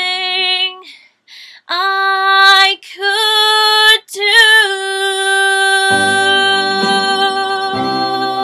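A young woman's solo voice singing the last line of a slow show-tune ballad, ending on a long held note with vibrato. Instrumental accompaniment with low notes comes in under the held note about six seconds in.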